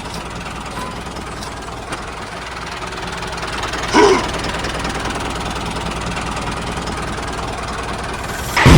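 A small engine running steadily. About four seconds in there is a brief, louder pitched sound, and a loud burst starts just before the end.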